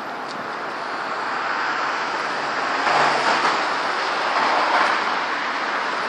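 Gusty storm wind rushing over the microphone, swelling to a strong gust about halfway through and staying strong.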